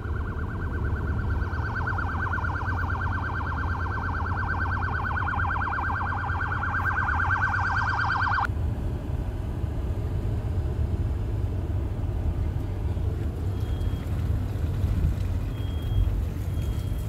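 A siren warbling rapidly and evenly over the low rumble of a car cabin; the siren cuts off suddenly about eight seconds in, leaving the engine and road rumble, with a few faint short high beeps near the end.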